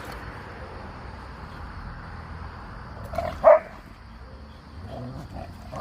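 A dog gives one short, loud bark a little past halfway through, during rough play between two dogs.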